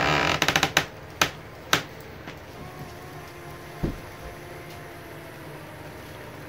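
Background music ends, then the wooden injection-molding machine cracks under load as its lever and plunger are forced down on milk-jug plastic: a quick run of sharp cracks, two louder single cracks within the next second, and a dull thump about four seconds in. The cracking is the wooden frame breaking in several places.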